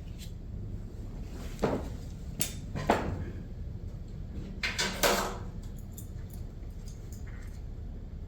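Scattered clicks and knocks of hands handling a small air pump and its hose fitting, a few separate knocks with a short cluster about five seconds in, over a steady low hum.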